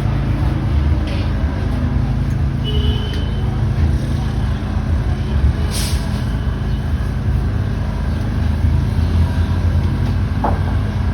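Road traffic passing: vehicle engines running with a steady low rumble, and a short hiss about six seconds in.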